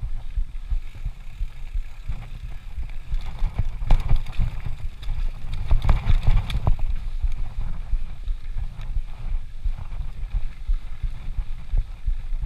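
Mountain bike rolling fast down a dirt forest trail, heard through an action camera: wind buffeting the microphone as a constant rumble, with a run of sharp knocks and rattles from the bike between about four and seven seconds in as it crosses rougher ground.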